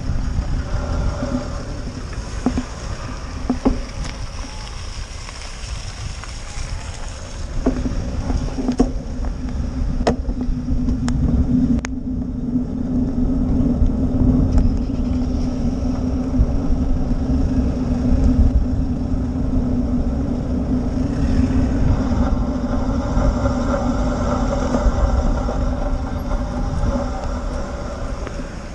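Wind rumbling on the microphone and road noise from a camera-mounted ride along a wet lane. A steady low hum joins about a quarter of the way in, and a few sharp clicks come around the middle.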